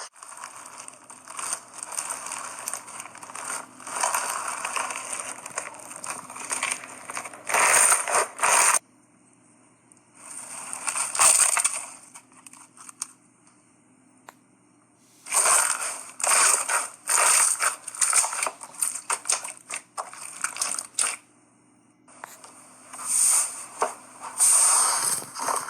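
Slime being squeezed and worked by hand: bursts of rapid small clicks and pops, each a second or two long, with short quiet pauses between them.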